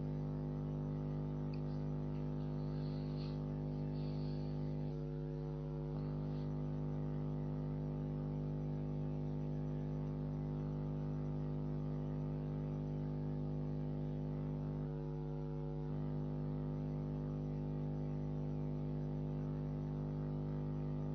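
Steady electrical mains hum with a buzzy row of overtones. It thins out briefly twice, about ten seconds apart.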